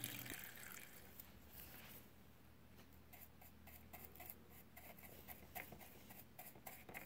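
Faint scratchy strokes of a bristle brush scrubbing a circuit board in acetone, a quick irregular run of them in the second half.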